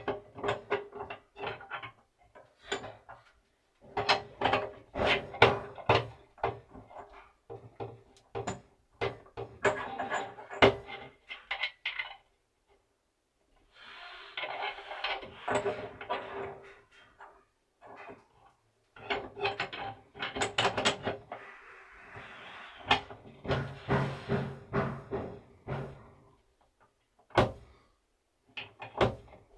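Bursts of scraping, rasping and clicking as a brass ball valve and its threaded nipple are handled and screwed together, with pauses between the bursts and a faint steady hum underneath.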